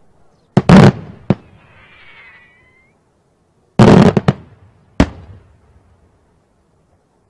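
Daytime aerial fireworks shells bursting overhead. A loud blast comes under a second in and is followed by a sharp crack, then a faint crackling hiss. A second loud blast comes about four seconds in, with another sharp crack a second later.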